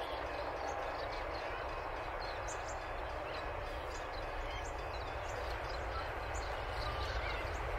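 Steady low rumble of an approaching SCT freight train's diesel locomotives, with small birds chirping over it.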